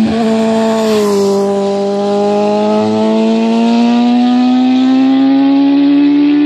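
Honda CBR954RR's inline-four engine through a custom shorty exhaust, loud and steady as the bike is ridden along the road. Its pitch dips about a second in, then climbs steadily as it pulls on.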